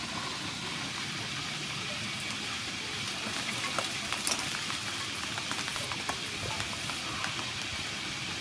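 Steady background hiss, with a run of small clicks and scrapes from about three seconds in as a cucumber is handled and peeled with a hand vegetable peeler.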